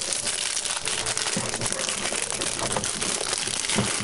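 Packaging being handled and opened around the docking station, a continuous crinkling and rustling full of small crackles.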